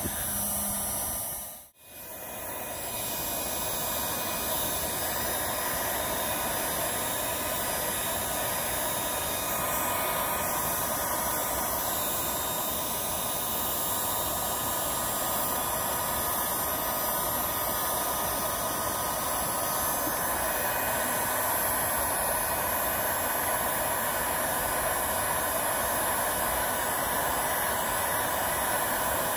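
Electric heat gun running steadily, its fan blowing hot air onto a freshly applied muffler repair patch to cure it. The sound drops out briefly about two seconds in, then comes back.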